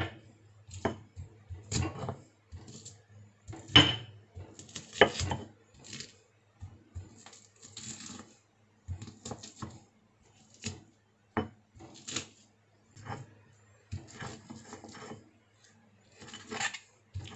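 Stone pestle pounding and grinding shallots and garlic in a flat stone mortar (Indonesian cobek and ulekan): uneven knocks of stone on stone, about one or two a second, with crushing between them.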